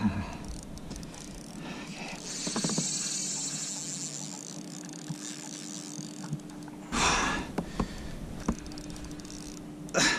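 Spinning reel's drag buzzing for a few seconds while a big lake trout pulls line off on a run, followed by two short, heavy breaths from the tired angler.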